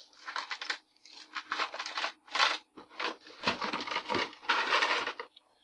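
Irregular rustling and scraping handling sounds in a run of short bursts, the loudest about two and a half seconds in and near the end.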